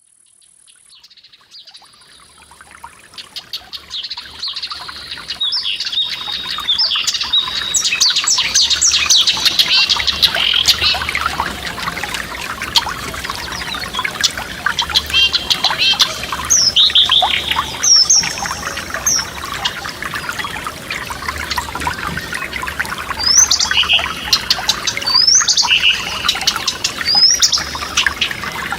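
Several songbirds singing with clear whistled notes and quick slurred calls over the steady babble of a forest stream. The sound fades in over the first few seconds.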